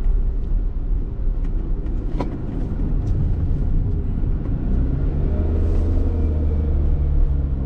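Honda kei car on the move: steady engine and road rumble. From about halfway in, the engine note comes through as a steady, even drone, and there is a light tick about two seconds in.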